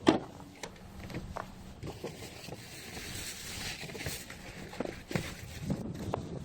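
Footsteps through snow with scattered knocks and handling noises; a sharp knock right at the start.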